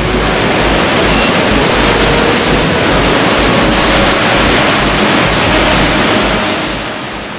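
Floodwater of a river in spate rushing loudly and steadily, fading out near the end.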